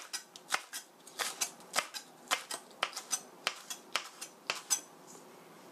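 Chef's knife slicing a green onion diagonally on a plastic cutting board: a sharp knock of the blade against the board about twice a second, stopping about five seconds in.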